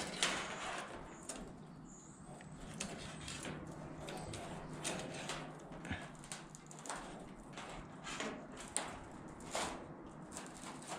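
Irregular light knocks and clicks of galvanized sheet steel being handled and set in a sheet-metal brake, over a faint steady low hum.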